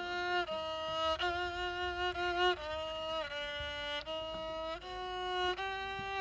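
A boy playing a slow tune on the violin, long bowed notes about one a second with short slides between some of them.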